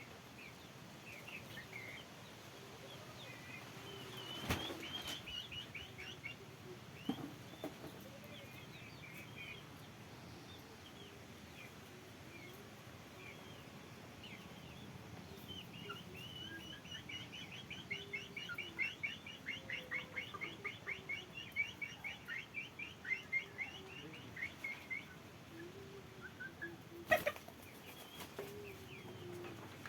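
Birds calling: scattered high chirps, a long run of rapid chirps in the middle, and some lower calls underneath. Sharp knocks come twice, early on and near the end.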